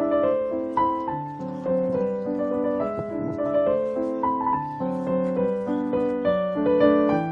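Background piano music: a gentle melody over broken chords.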